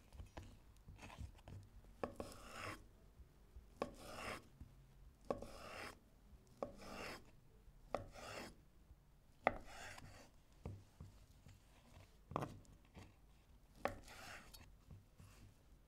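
A kitchen knife slicing food on a cutting board in slow, even strokes about every second and a half. Each stroke is a short scraping cut with a sharp knock of the blade on the board.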